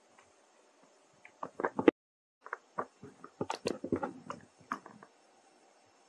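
A string of small, sharp clicks and crackles from a baby macaque fidgeting and handling something small on a rock. There is a short cluster about a second and a half in, a brief dropout, then a denser run from about two and a half to five seconds in.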